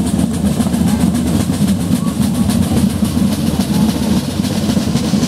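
Marching snare drums of a drum corps playing a fast, steady rhythm, over a heavy low rumble.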